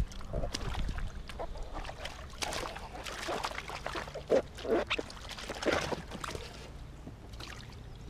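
Shallow water splashing and sloshing around rubber boots as a man shifts his feet and pulls a wet, water-filled thermo boot off his foot. A few short, sharper sounds come around the middle.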